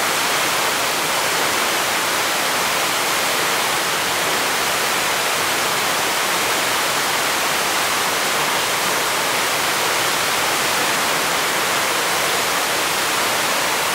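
A 23 m waterfall with a heavy flow of water, a loud and steady rush of falling water.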